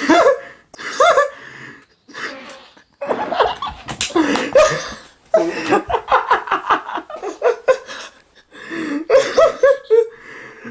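A person laughing hard in several fits, breaking into a run of quick ha-ha pulses in the middle.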